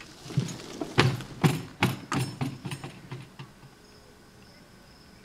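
A horse knocking an object about: about a dozen irregular knocks and clatters, bunched in the first three seconds and then dying away.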